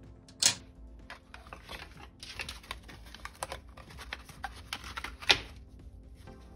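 Cardboard toy box and its cardboard display tray being handled and pulled open: dense papery rustling and crackling, with a sharp snap about half a second in and a louder one just past five seconds.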